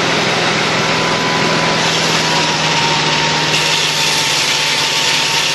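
Small engine-powered machine running flat out at a steady high speed, a loud constant drone.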